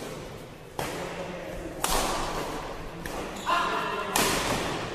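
Badminton rackets striking the shuttlecock in a fast doubles rally: four sharp smacks, with a quick pair near the end, each trailing a short echo in the hall.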